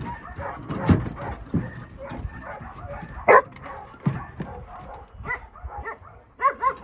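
A dog barking: one loud bark about three seconds in, then shorter barks, with a quick pair near the end. A few dull low thumps in between.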